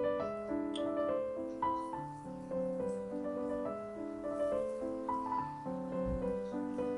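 Background piano music: a melody of held notes changing about every half second.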